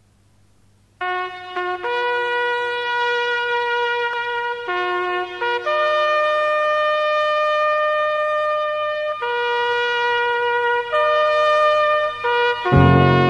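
A slow solo melody on a wind instrument: long held notes. A fuller, lower accompaniment comes in near the end.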